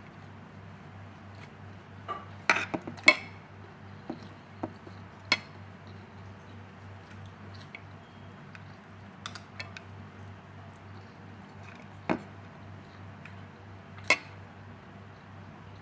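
Spoon or fork clinking and scraping against a plate while eating: scattered sharp clicks, a quick cluster a couple of seconds in and single clinks after that, over a steady low hum.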